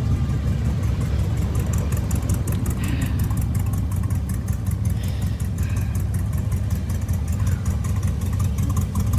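A slow-moving line of cars and trucks running past: a steady traffic rumble of engines and tyres.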